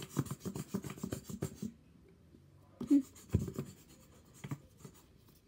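Quick scratchy rubbing and tapping of hands handling things right at the microphone, stopping after a second and a half; a knock a little over three seconds in, followed by a few light taps.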